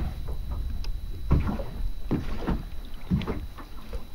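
Water slapping against the hull of a small boat at sea: uneven low thumps every half second or so over a constant low rumble.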